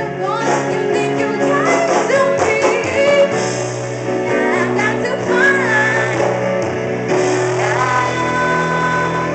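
A woman singing lead into a microphone with a live band of electric bass and guitar. She holds one long note near the end.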